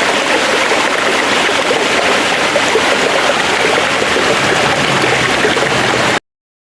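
Forest stream flowing in a steady, full rush of water, which cuts off suddenly near the end.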